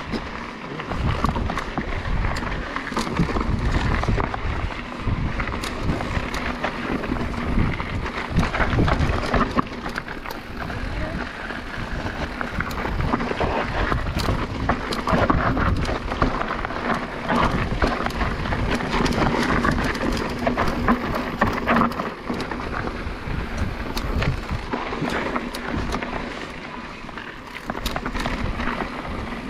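Mountain bike ridden fast down a rough trail: tyres rolling over rocks and loose ground, the bike's frame and chain rattling with frequent knocks, wind buffeting the microphone. A steady hum runs underneath.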